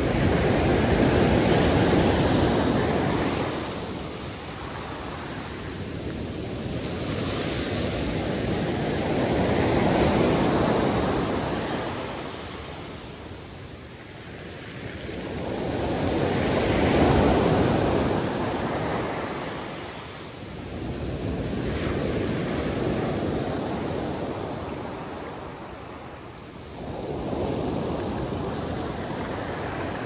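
Sea waves coming in and drawing back, rising and falling in about five slow surges. The strongest swells are at the start and a little past the middle.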